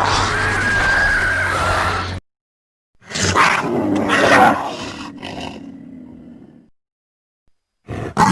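Designed dromaeosaur (raptor) creature calls, three in a row with pauses between. A long roar cuts off about two seconds in, a second call starts about a second later and fades away over a few seconds, and a short third call begins near the end.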